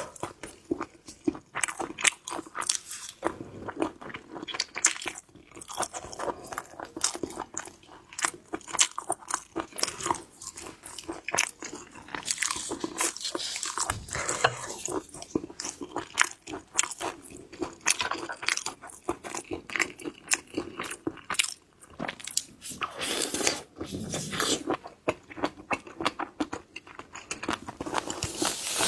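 Close-miked eating of shellfish: biting and chewing with many sharp, irregular crunches and wet mouth sounds.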